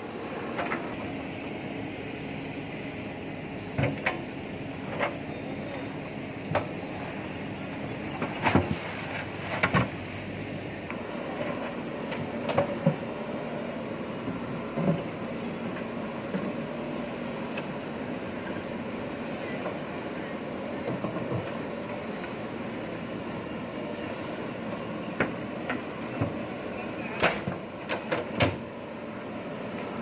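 JCB 3DX backhoe loader's diesel engine running steadily while it works, with scattered sharp clanks and knocks, a dozen or so, as the bucket pushes the concrete hume pipe and strikes stones.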